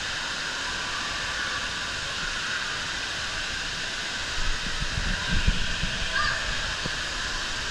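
Indoor waterpark din: a steady rush of running and splashing water with distant crowd voices and shouts mixed in. A few low thumps come about halfway through.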